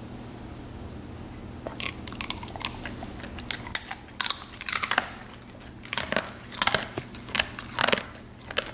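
A Siberian husky crunching and chewing a dehydrated beef liver treat. The crunches start about two seconds in and come in irregular bunches.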